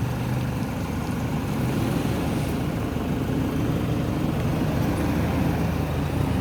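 A motor vehicle's engine running steadily at idle, a low even hum with road noise around it.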